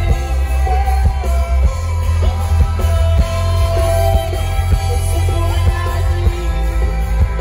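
Live rock band playing loud through a PA system: a singer over heavy bass and a steady drum beat.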